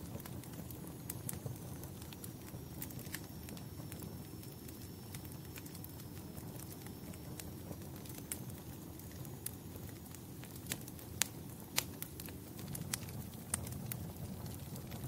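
Wood fire burning in a fireplace: a steady low rumble of flames with irregular sharp crackles and pops, the loudest pair a little past the middle. A faint high thin whistle runs through the first half.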